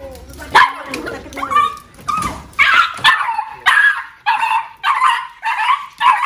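Small puppy barking at a man at its feet: a rapid string of high-pitched yaps, settling into a steady run of about two barks a second from about two and a half seconds in.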